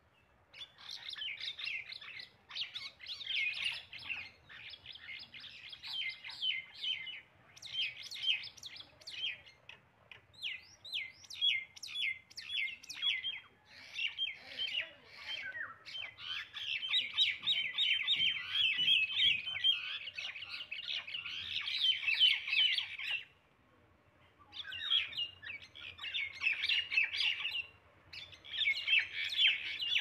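Common mynas (Acridotheres tristis) giving rapid chattering calls in long, dense runs while two of them fight on the ground. The calls break off briefly about three quarters of the way through and again near the end.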